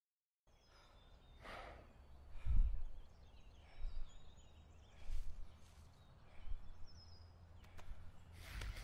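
Quiet forest ambience with faint bird chirps, broken by a few short breaths or sighs and soft rustles. A dull low thump comes about two and a half seconds in.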